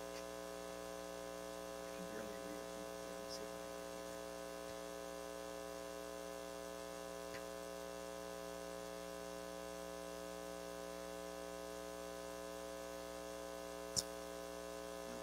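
Steady electrical mains hum, a constant tone with many overtones from the sound system. A single sharp click comes near the end.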